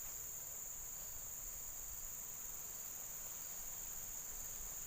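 Insects chirring in a steady, high-pitched, unbroken drone.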